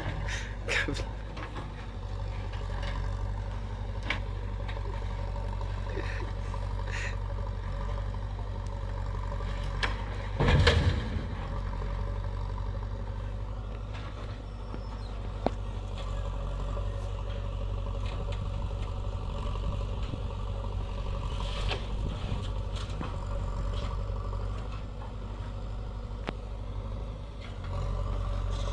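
JCB backhoe loader's diesel engine running steadily, with scattered knocks and clatter and one louder noisy burst about ten seconds in.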